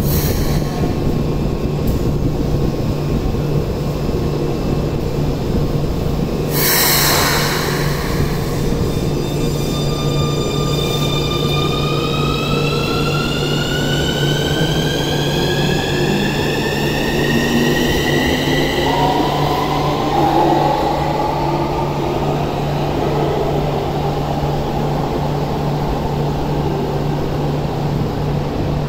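Keikyu 600 series train pulling out of an underground subway platform. After a short hiss about seven seconds in, its traction motors whine in a stack of tones that rise steadily in pitch as it accelerates, over a steady low hum.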